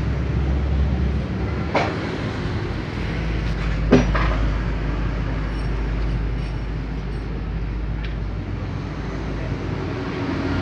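Steady low mechanical rumble, with two sharp metallic clicks about two and four seconds in as a steel tool knocks against the truck's rear wheel hub.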